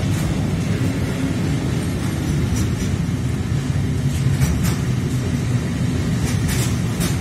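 Intermodal freight train's pocket wagons, loaded with lorry semitrailers, rolling past at speed: a steady, heavy rumble of wheels on rail, with a few sharp clicks in the middle and near the end.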